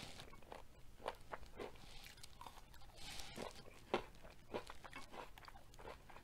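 Close-miked chewing with the mouth closed: soft crunches and wet mouth clicks at irregular intervals.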